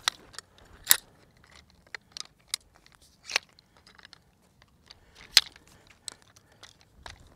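Leg pole sections of a Quechua MH500 folding camping chair being snapped together tent-style: a string of irregular sharp clicks and clacks, the loudest about a second in and again about five and a half seconds in.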